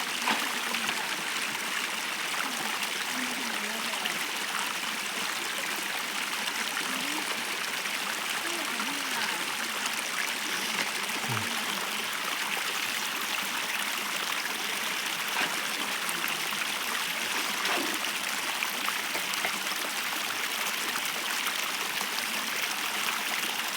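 Stream water flowing steadily, an even rushing noise with a few faint small gurgles.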